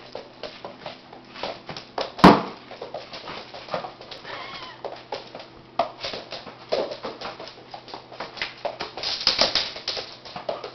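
Golden doodle puppy whimpering, among many quick clicks and scuffles, with one loud sharp knock about two seconds in.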